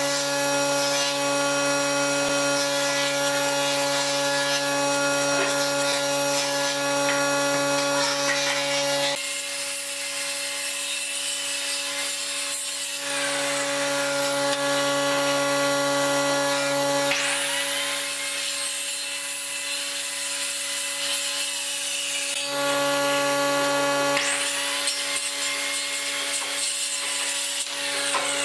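Handheld circular saw running with a steady whine and cutting across pine pallet slats in several passes, the rasp of the blade in the wood coming and going over the motor.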